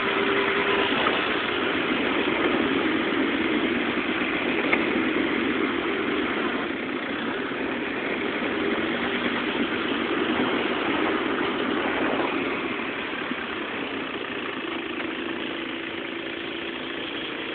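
A small vehicle's engine running steadily under a constant rushing noise, growing slightly quieter in the second half.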